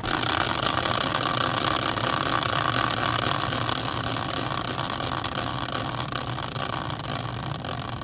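Hand-spun caster wheel used as a team-draw wheel, whirring on its axle. It starts suddenly and slowly fades as it spins down.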